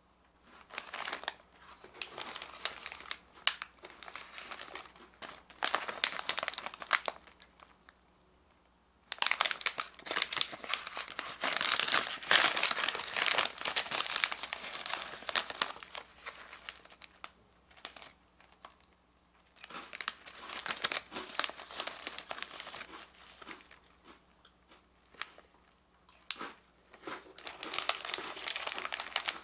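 Plastic snack packets crinkling as they are handled, in bouts with short quiet gaps. The longest, loudest stretch, about a third of the way in, comes as a foil-lined rice-cracker bag is pulled open.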